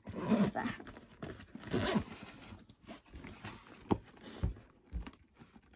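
Backpack and keychains being handled: soft rustles and knocks, a sharp click about four seconds in, then two low thumps.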